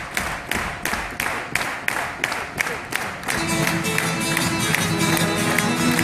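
Hand claps keeping a steady beat, about three a second. About three seconds in, acoustic guitars and a violin come in playing a flamenco tune over it.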